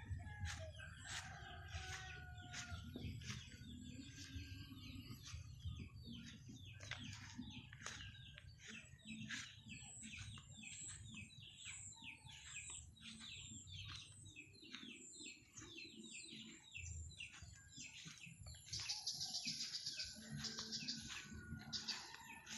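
Chickens chirping and clucking: a dense run of short, high chirps, with a few longer drawn-out calls in the first few seconds. A brief hissing, rustling burst comes near the end.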